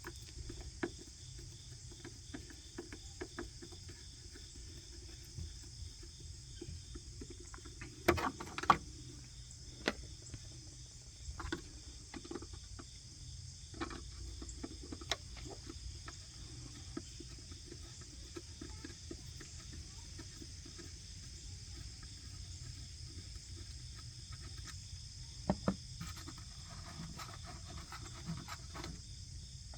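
Phillips screwdriver backing out the screws that hold a 2007–2014 GM SUV taillight housing: faint, scattered clicks and small knocks of the driver bit and hand tool on the housing, over a steady high hiss.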